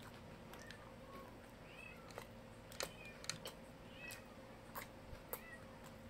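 Quiet hand-eating sounds: scattered soft clicks and smacks from mouth and fingers, with several brief high squeaks in between, over a faint steady hum.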